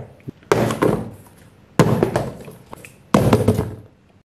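Cardboard parcel boxes dropping onto a hard floor: three thuds about 1.3 seconds apart, each fading out over most of a second.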